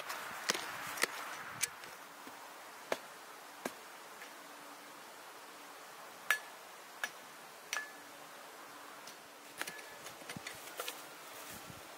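A small hand pick striking into soil while a hole is dug: irregular sharp knocks, some with a brief metallic ring.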